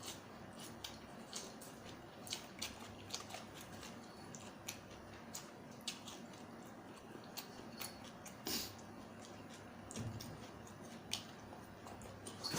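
Close-up chewing and mouth clicks of someone eating a Thai seafood salad: many small wet smacks scattered irregularly, with a slightly louder one about eight and a half seconds in.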